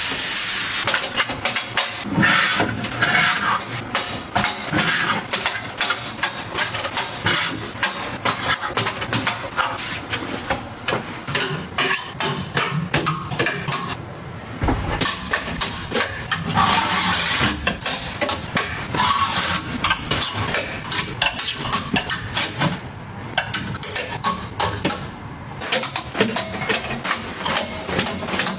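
Household items being handled and set down by hand: a dense run of clicks, taps and knocks, with stretches of hissing rustle such as plastic packaging.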